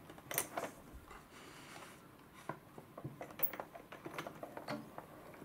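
Plastic crank and gear wheels of a Sushi Shokunin toy sushi machine clicking irregularly as the handle is turned, pressing cooked rice into rice balls.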